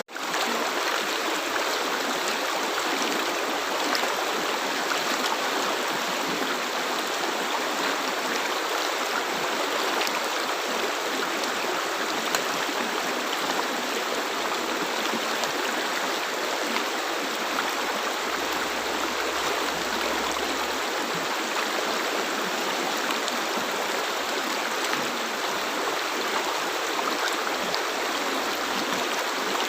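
River water flowing: a steady, even rush of water with faint scattered splashy ticks, cutting out for an instant at the very start.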